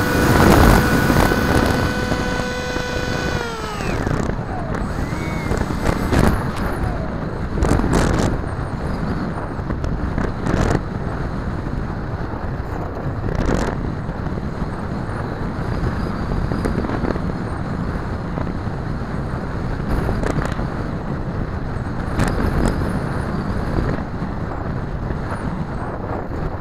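Bixler 2 RC plane's brushless electric motor and propeller whining at a steady pitch, which falls away about three and a half seconds in as the throttle drops. After that, wind rushes over the onboard camera's microphone, with a few short buffets.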